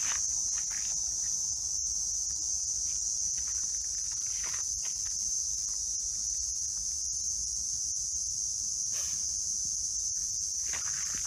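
Steady, high-pitched chorus of insects buzzing without a break, with a few faint scuffing steps beneath it.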